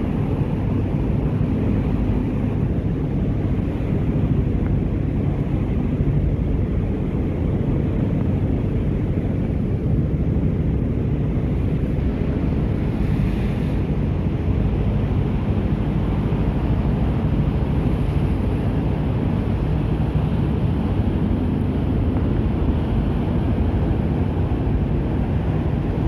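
Steady wind rumble on the microphone and water rushing past the hull of a small motorboat underway, over the drone of its engine.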